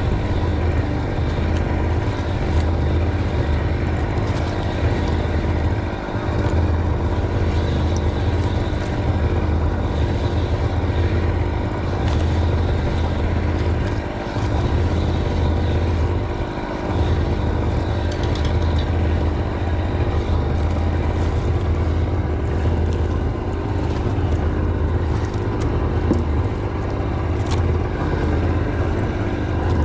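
Steady engine drone with a deep hum, running evenly without a break, dipping briefly a few times.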